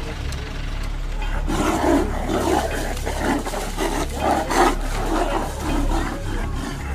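A wild animal calling in a quick series of rough pulses, two to three a second, over a steady low rumble.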